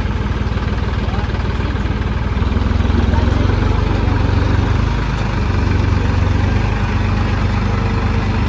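Massey Ferguson 2625 tractor's diesel engine running close by as the tractor pulls forward, a steady low drone that gets a little louder about three seconds in.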